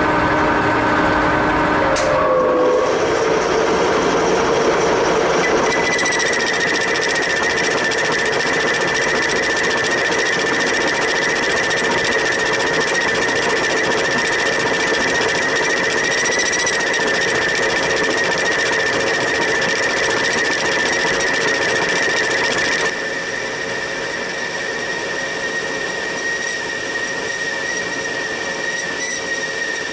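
Metal lathe cutting mild steel: a steady machining noise that starts abruptly, with a high steady squeal from the cutting tool setting in about six seconds in. The noise steps down quieter about 23 seconds in.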